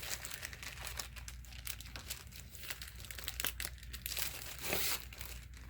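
Folded paper wargame map being unfolded and handled, giving a continuous crinkling and rustling of paper with many small crackles.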